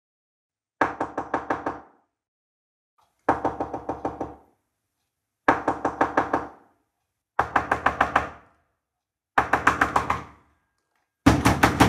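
Knocking on a door: quick runs of about six to eight knocks, repeated five times about two seconds apart, then a longer, denser run of knocking near the end.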